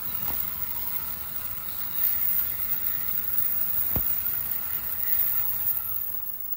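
N700S Shinkansen train running through the station at speed without stopping: a steady rush of wheels on rail and air, with one sharp knock about four seconds in. The sound starts to die away near the end as the tail car goes by.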